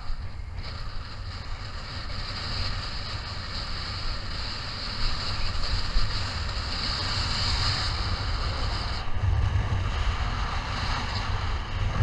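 Strong, gusty wind buffeting the microphone: a continuous rough rumble with hiss, and a harder gust about nine seconds in.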